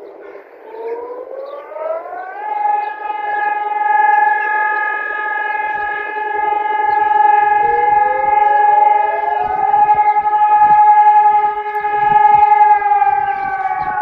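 Civil defence sirens sounding together in a monthly siren test. Over a steady lower tone, one siren rises to a higher steady pitch within the first two seconds, a second one glides up to join it around eight seconds in, and near the end the pitches begin to fall as they wind down.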